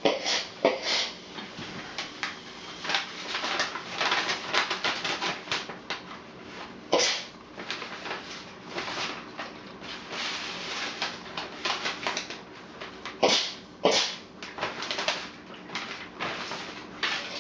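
Stiff old paper crackling and rustling as a steam iron is slid and pressed across it on an ironing board. There are many short crackles, with a few louder ones: one about seven seconds in and two close together later on.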